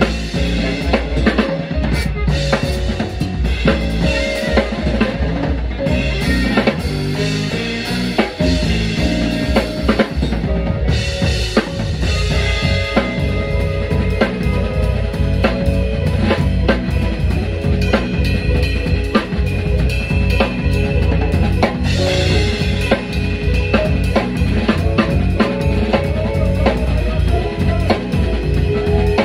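Live band playing, with the drum kit to the fore: rapid hits over a heavy bass line and held notes from the other instruments.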